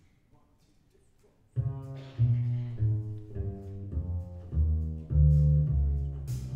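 Upright double bass playing a plucked jazz bass line, entering about a second and a half in after near silence. Drums with cymbal crashes come in near the end.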